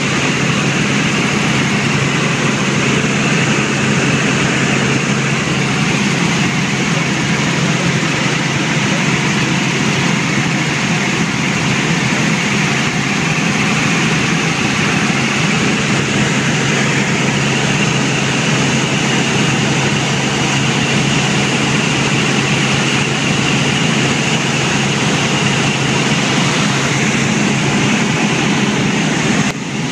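Helicopter in flight: a loud, steady drone of engine and rotor noise with a constant low hum, broken only by a short dip just before the end.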